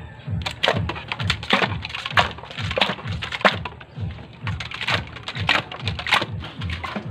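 Sharp, irregular clacking knocks of poles striking the metal ice cream canisters and the crushed ice packed around them, over background music with a steady low beat.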